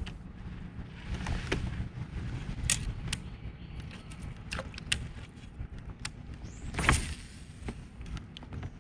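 Scattered light clicks and knocks, several a few seconds apart with the strongest about seven seconds in, over a low steady rumble. The knocks are of the kind made by fishing gear being handled aboard a kayak.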